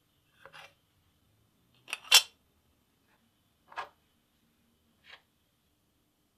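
Four short, sharp clicks and taps of small hard objects being handled. The loudest is a quick double click about two seconds in.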